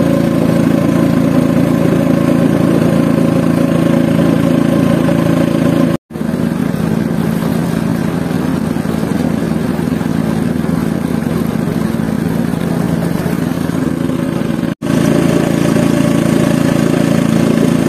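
Engine of a long wooden river boat running steadily at cruising speed, with water rushing past the hull. Two momentary dropouts break it, about six seconds in and near the end.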